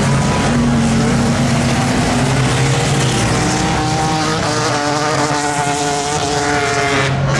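Several old six-cylinder jalopy race cars running hard together on a dirt oval, their engines at high revs, the overlapping engine notes rising and falling as the cars go by.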